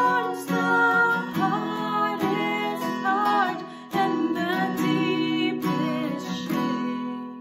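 Two women singing a worship song to a strummed acoustic guitar, the voices tapering off near the end.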